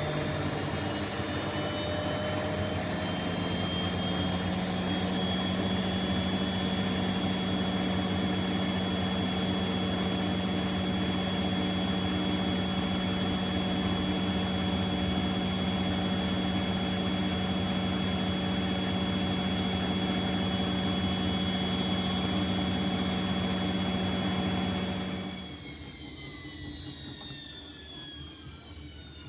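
Bosch Exxcel 1400 washing machine spinning at high speed: a steady motor whine that climbs over the first few seconds and then holds. About 25 seconds in, the motor cuts out and the drum coasts down with a falling whine.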